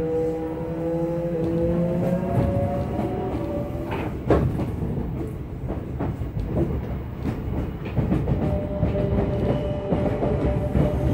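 Cabin running sound of an unrenewed Odakyu 1000 series electric train with a GTO-VVVF inverter. The inverter and motor tones rise in pitch as it accelerates over the first few seconds, then fade into wheel-and-rail rumble with sharp clicks from rail joints. A steady motor tone comes back near the end.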